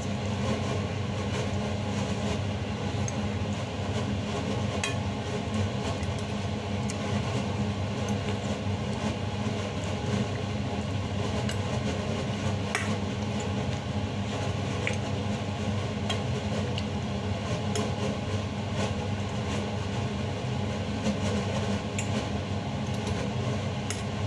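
A machine's steady low hum runs throughout. Now and then a metal fork and spoon clink lightly against a stainless steel pot.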